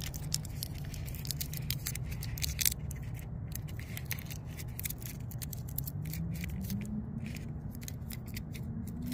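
Tape and paper crackling in a run of small crisp clicks as fingers peel tape off a new drain-plug crush washer, over a steady low hum. A low tone slowly rises in pitch in the second half.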